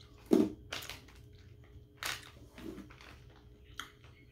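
Mouth sounds of someone eating a small hard candy: about five short wet smacks and clicks, the loudest just after the start.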